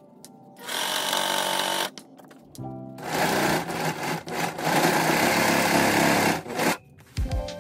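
Electric sewing machine stitching through layered denim in two runs: a short burst about a second in, then a longer steady run from about three seconds until near the end.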